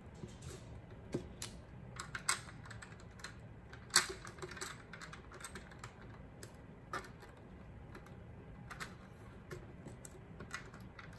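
Small plastic Lego pieces clicking and clattering as they are handled and fitted together, in irregular clicks with the loudest about four seconds in.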